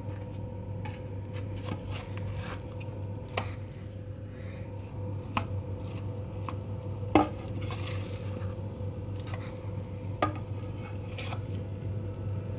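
A slice of meat frying in hot oil in a non-stick pan, with scattered pops and crackles over a steady low hum. There is a louder knock of metal about seven seconds in.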